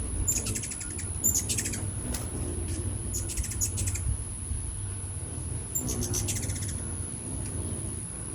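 Hummingbirds chittering: three bursts of rapid, high chip notes, the first a moment in, the next around the middle and the last past the middle, over a steady low hum.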